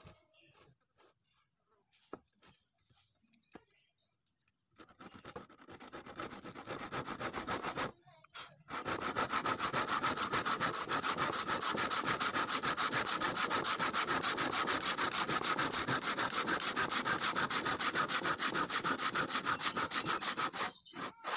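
Hand saw cutting through a wooden plank. After a few faint clicks, the sawing starts about five seconds in, softer at first, pauses briefly, then settles into steady, fast back-and-forth strokes that stop just before the end.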